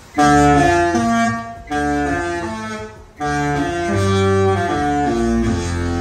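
The Disney Fantasy's musical ship horn sounding a tune: a loud series of held, chord-like notes that starts suddenly, with brief breaks about one and a half and three seconds in.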